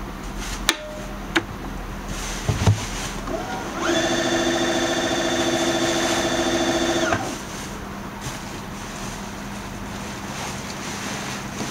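Sewing machine motor winding a bobbin: a few handling clicks, then the motor spins up about four seconds in, runs at a steady whine for about three seconds and stops abruptly.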